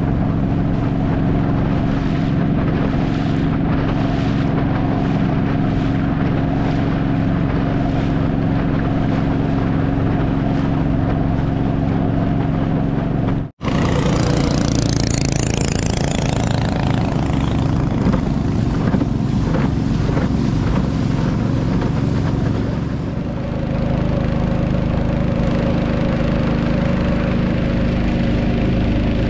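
Motorboat engine running steadily under way. It cuts out for an instant about halfway through, and its pitch shifts a little near the end.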